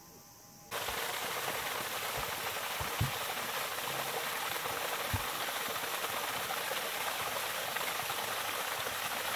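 Small waterfall splashing steadily over rocks, a constant rush of falling water that starts abruptly less than a second in.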